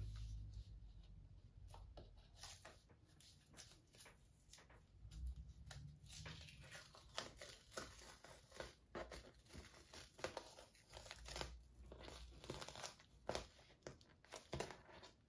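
Painter's tape (FrogTape) being peeled slowly off a textured acrylic painting: a faint, irregular run of small crackles and tearing snaps, coming thicker from about two seconds in.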